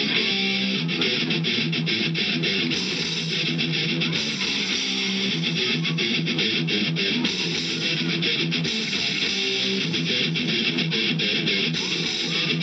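Guitar-led music playing steadily, with sustained low notes and a bright, busy layer on top.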